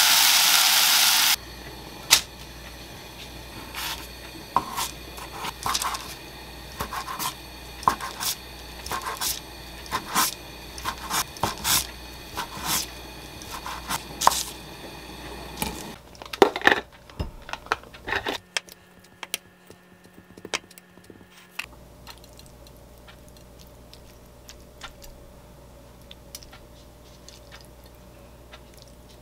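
A pan of bulgogi frying with a loud sizzle that cuts off after about a second. Then a kitchen knife chops a thin egg omelette into strips on a paper-lined wooden cutting board, making a long run of knife knocks about one or two a second, with a louder cluster of knocks later and fainter clicks near the end.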